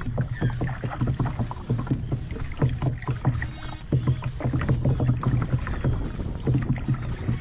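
Water splashing and slapping against the hull of a plastic sit-on-top kayak as it is paddled: a quick, irregular run of splashes close by, with low thuds against the hull about once a second.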